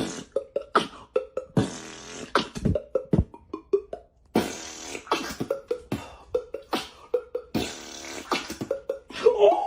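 A person beatboxing a fast rhythm of mouth-made bass thumps, clicks and hissed snare sounds, with a few short hummed notes in between.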